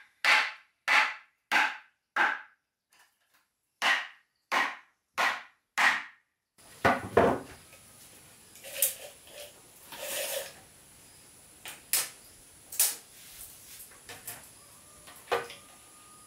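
A tool striking wood in a steady rhythm, a little under two blows a second, with a short pause about two seconds in; the blows stop about six seconds in. After that come scattered lighter knocks on wood and a short scrape.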